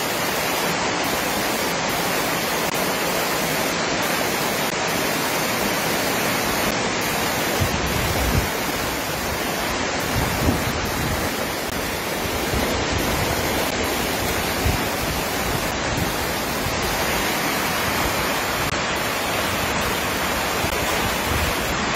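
Torrential rain and rushing floodwater, a loud steady hiss of water. About eight seconds in, a low rumble joins it as the torrent runs close by.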